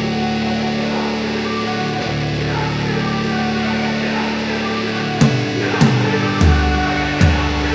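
Rock-style background music: held guitar chords, joined about five seconds in by sharp percussive hits and a heavy bass.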